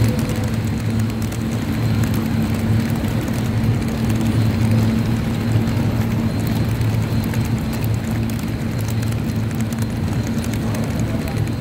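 S gauge model trains running on metal track: a steady hum with the rumble of the cars rolling by.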